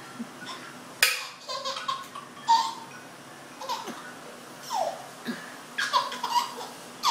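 Toddler laughing in a run of short bursts, roughly one every half second to a second, many of them falling in pitch.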